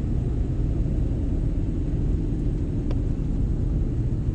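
Steady low rumble of a car driving, heard from inside the cabin, with one faint click about three seconds in.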